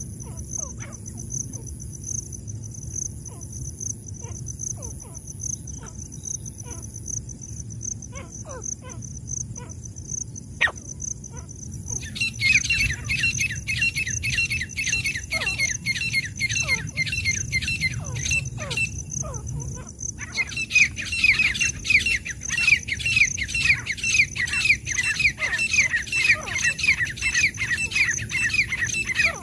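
Francolin (teetar) calling in long rapid runs of short falling notes, starting about twelve seconds in, breaking off briefly and then starting again. A steady high insect drone runs underneath.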